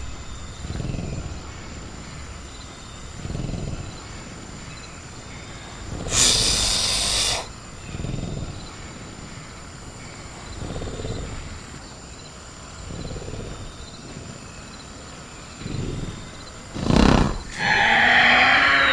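Sound-designed velociraptor vocalising: low growling breaths every two to three seconds, a loud noisy hiss-like burst about six seconds in, and near the end a sharp burst followed by a louder screech that falls in pitch. A steady high cricket chirr runs underneath.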